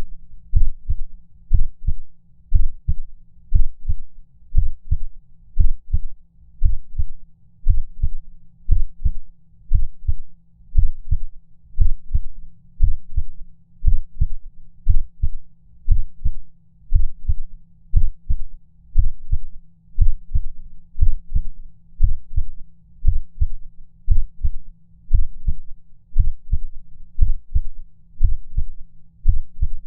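Human heartbeat with low, thudding double beats about once a second over a faint steady low hum. The rhythm is uneven, a heart skipping beats.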